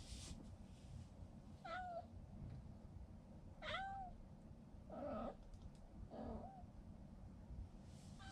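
A pregnant cat meowing, four short meows one to two seconds apart, the later two rougher and briefer.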